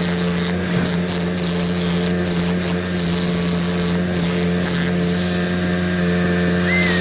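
An engine running at a steady speed, with an even hum.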